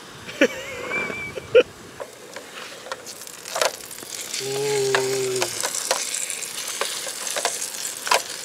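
Bannock dough frying in hot oil in a non-stick pan on a Jetboil Genesis propane camp stove: a steady sizzle that swells from about three seconds in, with scrapes and taps of a wooden spatula as a patty is turned. A brief low steady tone sounds about halfway through.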